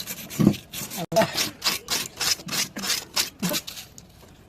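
Paper being cut with rhythmic rasping strokes, about four a second, dying away near the end.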